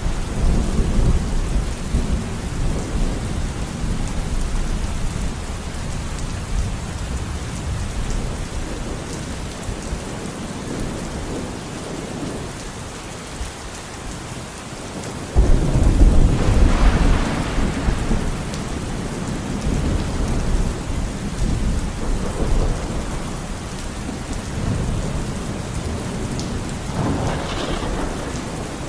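Steady rain with rolling thunder. A sudden loud thunderclap about halfway through rumbles on for several seconds, and another rumble of thunder comes near the end.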